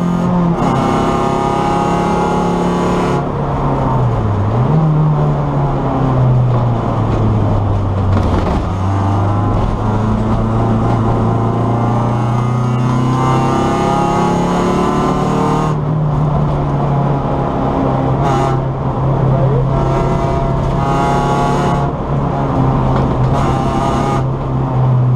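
Race car engine running hard, heard from inside the stripped, roll-caged cabin. Its note drops and then jumps sharply about four seconds in, then holds fairly steady.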